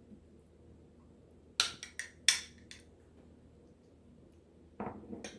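Kitchen utensil clinking sharply against a container four times in about a second while salsa is served out, then a duller scraping sound near the end.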